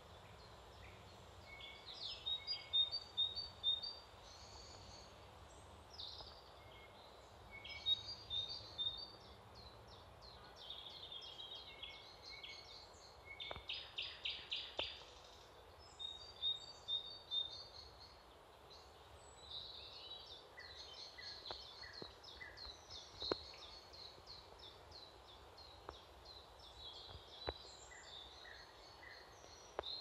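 Several small songbirds singing: bursts of short, high chirping phrases every few seconds, one a fast trill, over a faint steady background hiss.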